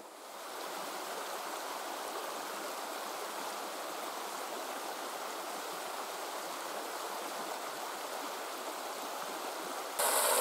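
Mountain stream water rushing steadily. It jumps abruptly louder at the very end.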